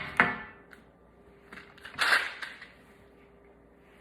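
Handling noise from small toys being picked up and moved: a few sharp clicks at the start, faint ticks, and a short rustle about two seconds in.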